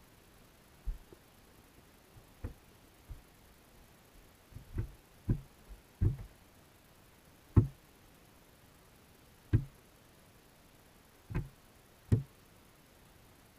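Irregular dull thuds, about ten of them, heard underwater as small sunfish inside a wire-mesh minnow trap bump against the GoPro's waterproof housing.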